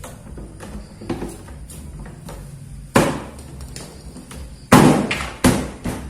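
Sharp knocks and clatter of hard parts during work on a washing machine: light taps, then three loud strikes, one about halfway through and two close together near the end, each ringing briefly.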